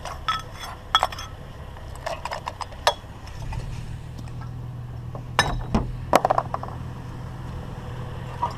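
Hard scrap items clinking and knocking together in a scattering of short, ringing strikes, with a cluster about five to six seconds in. A steady low hum starts about three and a half seconds in.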